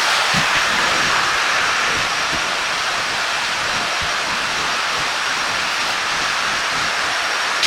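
Vacuum cleaner running with a steady rushing whoosh.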